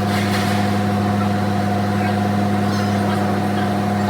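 Vehicle engine idling steadily, a constant low hum with a steady higher tone above it.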